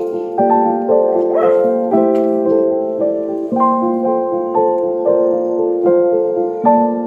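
Background piano music: a gentle melody over chords, with a new note or chord about every half second.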